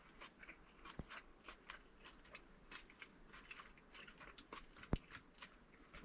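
A person eating hot pot: faint, close chewing with many small scattered clicks, and a sharper click about five seconds in.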